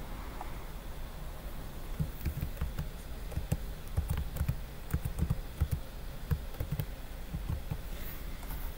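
Computer keyboard being typed on: a run of irregular key clicks starting about two seconds in, as a password of about a dozen characters is entered.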